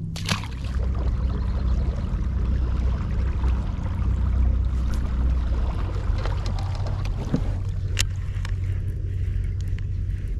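Boat motor running steadily with a low hum, over water and wind noise, with a few sharp clicks.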